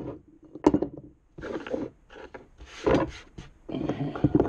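Jorgensen bench clamp scraping and knocking on a wooden workbench top as it is fitted into its mounting hole: a sharp knock under a second in, then several rough scrapes.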